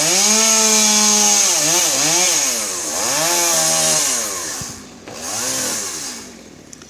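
Chainsaw revving up and down several times while cutting pine, its pitch held high for a second or so, then falling and rising again, dropping toward idle near the end.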